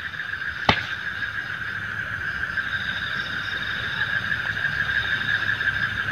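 Night insect chorus: a steady high buzz, joined about two and a half seconds in by a second, higher pulsing trill. A single sharp click just under a second in.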